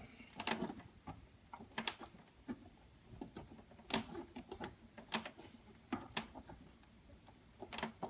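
Light, irregular plastic clicks and scrapes as the milk hoses are pushed into their fittings at the back of a Miele built-in coffee machine with a small flathead screwdriver.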